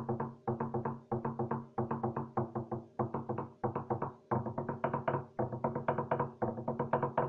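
A wooden slit drum, a hollowed log, beaten fast with two sticks: quick runs of pitched wooden strikes, with short breaks between phrases about every second.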